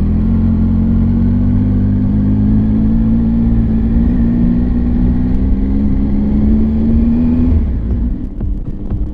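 Triumph Tiger 800 XRT's three-cylinder engine running under way, its note rising slowly as the bike gathers speed. About three-quarters of the way through the engine sound cuts off suddenly, giving way to quieter sound with sharp ticks.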